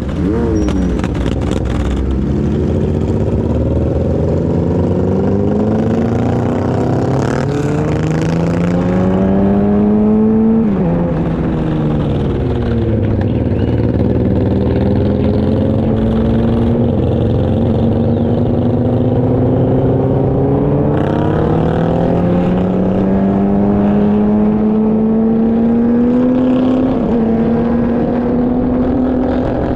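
Motorcycle engine accelerating on the road, its pitch climbing steadily. It drops back with an upshift about a second in, another about ten seconds in and a third near the end, over a haze of wind and road noise.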